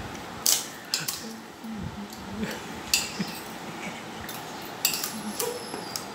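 A spoon clinking against a small ceramic bowl while scooping food: several separate sharp clinks, one of which rings on briefly about five seconds in.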